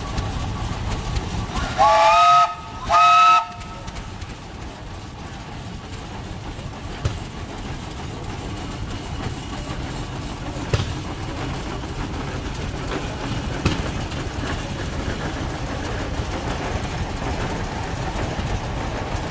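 Steam whistle on a Rumely steam traction engine blown twice in short blasts, each sounding several notes at once. After that comes the low steady running of the passing engines, with a few short knocks.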